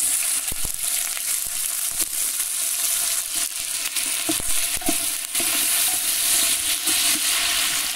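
Chopped onion sizzling in hot lard as it is tipped into a large metal pot and stirred with a wooden spoon: a steady frying hiss with a few light knocks from the spoon.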